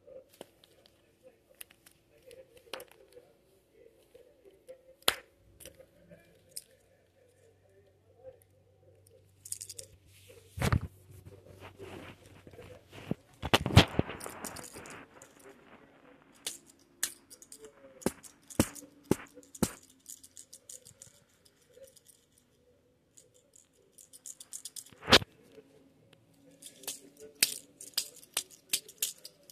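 Scattered clicks, knocks and rustles of a phone being handled and plastic toys being moved about, with a louder stretch of rustling around 14 seconds in.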